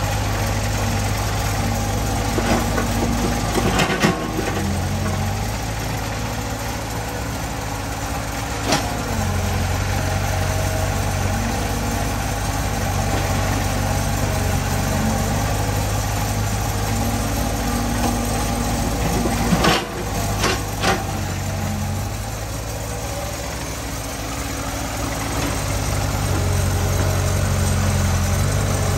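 Tracked dumper's engine idling close by while a small hydraulic excavator works beside it, the engine sound swelling and easing as the digger moves. A few sharp knocks stand out: one about 4 s in, one near 9 s, and a cluster around 20 s, as soil is loaded into the steel dump bed.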